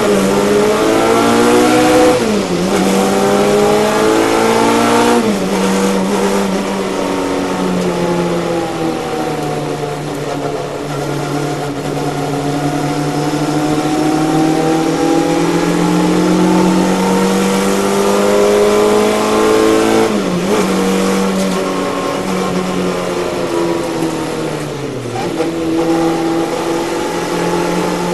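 Race car engine under hard acceleration, heard from inside the cockpit. Its pitch climbs and drops sharply at gear changes about 2, 5 and 20 seconds in, sags and swells slowly through the long bends in between, and falls then jumps back up near the end.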